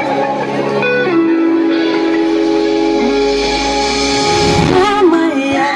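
Live pop-concert music through a festival PA: held, sustained chords, with a wavering melodic line coming in about four seconds in.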